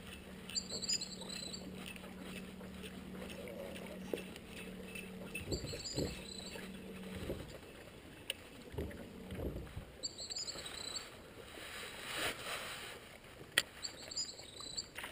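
Bass boat sitting on the water with a steady low hum through the first half and a few dull knocks against the hull near the middle. Short high chirps come four times, about every four to five seconds.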